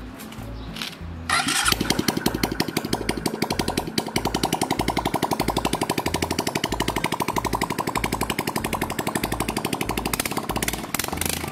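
A small 110cc four-stroke single-cylinder motorcycle engine from a Suzuki Viva starts about a second in and then runs steadily at idle, with a rapid, even firing beat.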